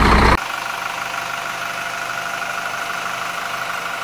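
A loud noise cuts off suddenly about half a second in. It leaves a steady idling engine sound with a constant hum of several fixed tones, which fades out near the end.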